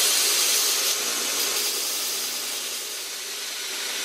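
Bench belt sander running, its abrasive belt grinding the tip of a forged steel steak hook with a steady hiss that eases slightly in the second half.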